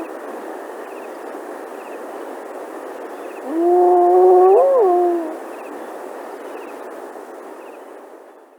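A jungle ambience sound effect: a steady hiss-like bed of wild sound with faint, regularly repeating small chirps. About three and a half seconds in comes one long, loud animal call, held on one pitch and then rising and falling near its end. The bed fades out toward the end.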